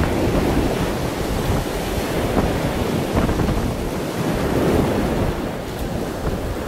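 Storm-force wind buffeting the microphone over the rush of foaming water along the hull of a heeled sailing yacht making fast way through rough seas.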